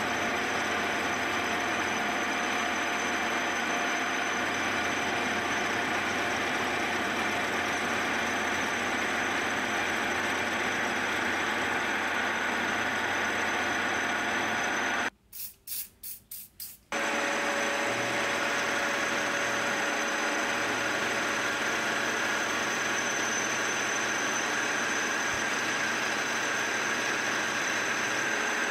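Milling machine spindle running while an end mill cuts a chamfered groove into a vice soft jaw: a steady machining noise with a high whine. About halfway through, the sound breaks off for under two seconds, with a few quick ticks.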